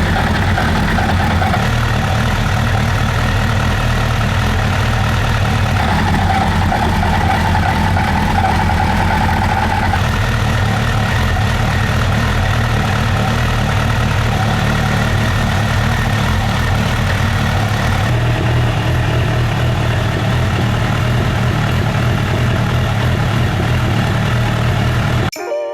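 Suzuki GSF1200's oil-cooled inline-four engine idling steadily, its tone shifting slightly at a few points.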